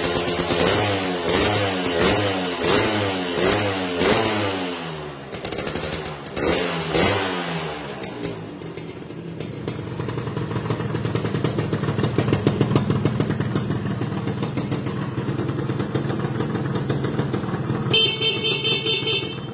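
Suzuki Xipo 110 two-stroke single-cylinder engine, bored to 120 cc and fed by a Keihin PWK carburettor, blipped in a string of quick revs, each rising and falling in about two-thirds of a second, through its stock exhaust. About eight seconds in it settles to a steady idle. A short high-pitched tone sounds near the end.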